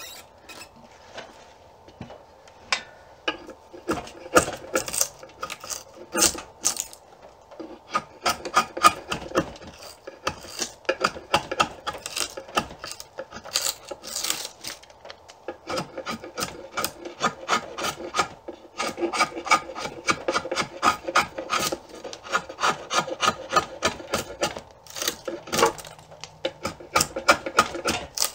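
Draw knife shaving and scraping the back of an Osage orange bow stave: many quick, short strokes of steel over hard wood, with a brief lull near the end.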